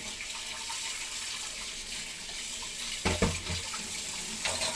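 Tap water running steadily, with a couple of dull knocks about three seconds in and near the end.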